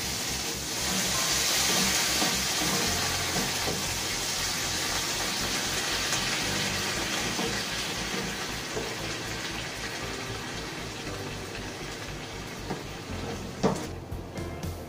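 Green beans sizzling and steaming in a hot pan just after a little water has been added: a loud, steady hiss that slowly fades, then drops off after a sharp clack near the end.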